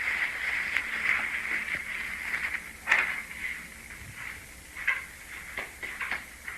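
Crackling, radio-like static with sharp pops, thin and high-pitched. It is densest at first, has its loudest pop about three seconds in, then thins out into scattered crackles.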